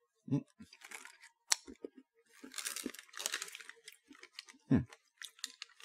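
Plastic candy bag crinkling in two spells, briefly about a second in and for about a second near the middle, with a couple of short closed-mouth hums.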